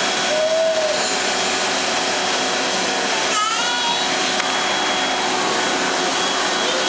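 Vacuum cleaner running steadily: an even rush of air over a constant motor tone.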